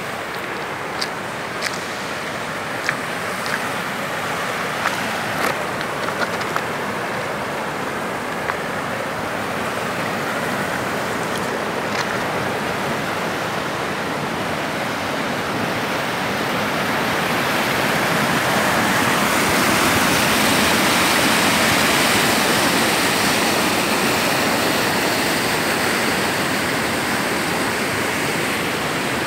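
Muddy floodwater rushing and churning through the broken concrete slabs of a wrecked river bridge. It is a steady rush that grows louder past the middle. A few sharp clicks sound in the first dozen seconds.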